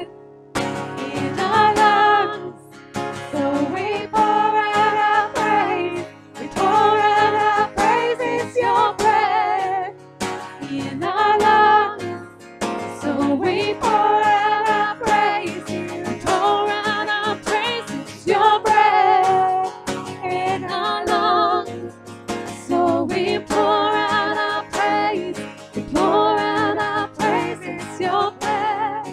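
Live worship song: two women singing in sustained phrases, accompanied by a strummed acoustic guitar.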